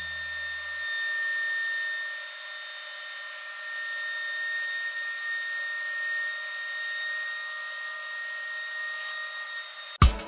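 DeWalt benchtop thickness planer running with a steady high whine and hiss as a board feeds through the cutterhead. Music cuts in near the end.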